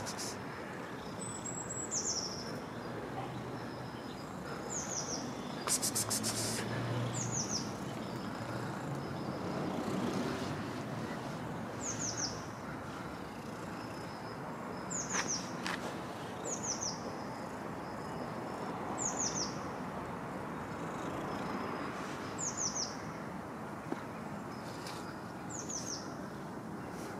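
A small bird chirping over and over: short high notes falling in pitch, often in twos or threes, every couple of seconds, over a steady outdoor background noise. A short burst of clicks comes about six seconds in.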